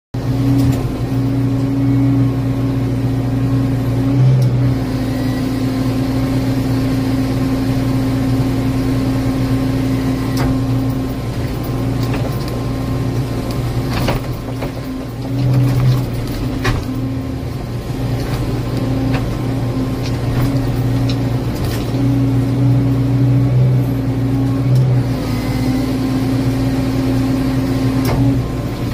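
Excavator with a hydraulic grapple saw attachment: the diesel engine and hydraulics run with a steady hum that breaks off and returns several times. A few sharp knocks come as the grapple works against the trees.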